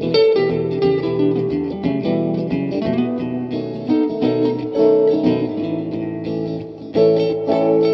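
Background music: a guitar-driven instrumental track, notes picked in quick succession, continuous and loud.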